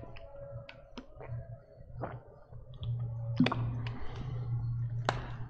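Scattered sharp clicks and taps over a steady low hum, the hum growing louder about three seconds in.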